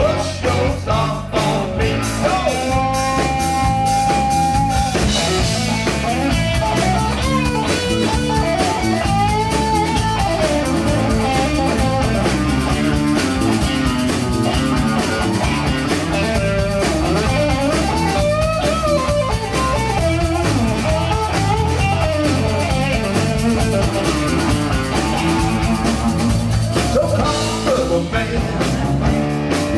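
Live rock band playing an instrumental break with no vocals: a lead electric guitar solo with bent notes over bass and a steady drum beat.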